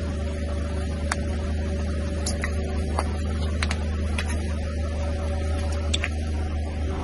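Car engine running with a steady low hum as its tyre slowly rolls over liquid-filled plastic piping bags, with scattered sharp cracks and pops as the bags burst under the wheel.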